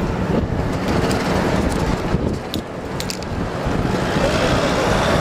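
Wind buffeting the microphone over the low running noise of a moving open-top bus and city street traffic.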